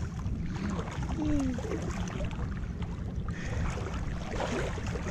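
Calm shallow sea water lapping and sloshing close to the microphone, with a steady low rumble underneath.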